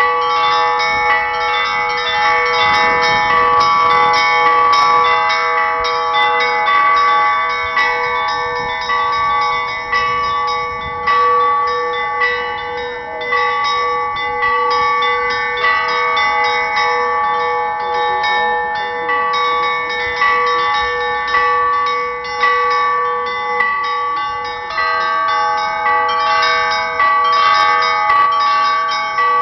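The Pakshenga church bells rung together in a continuous peal: several bells of different pitches struck over and over, their long ringing tones overlapping.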